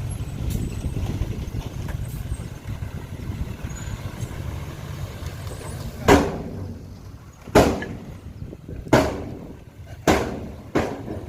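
Heavy vehicle's engine running with a steady low rumble, then five sharp, loud knocks about a second apart, each ringing out briefly.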